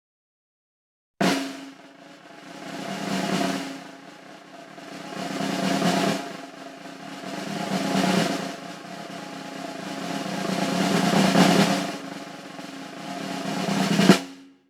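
Snare drum roll played in repeated swells, about five crescendos each building over two to three seconds. It opens with an accented hit about a second in and ends on a sharp accented stroke that cuts off.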